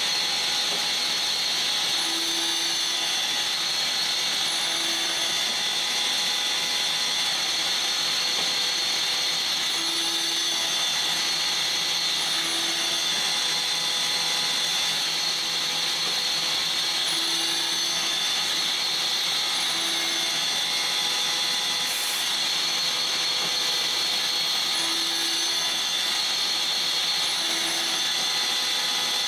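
CNC lathe with a live-tooling milling cutter machining hex flats on a brass part: a steady high-pitched cutting and spindle whine. Short low tones come in pairs about every seven seconds, and there is one brief click near the end.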